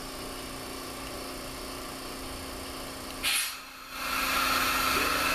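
Powermatic 3520 wood lathe running steadily with its vacuum chuck system as oil is wiped onto the turning bowl. About three seconds in there is a short burst of hiss and a brief drop in level, then a louder steady hiss with a whine.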